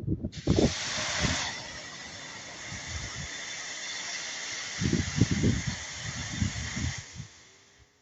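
High-pressure water jet from a 2200 W electric pressure washer spraying, a steady hiss that starts just after the beginning, is loudest for the first second, and stops about a second before the end. Low rumbling bursts sound under it around the middle.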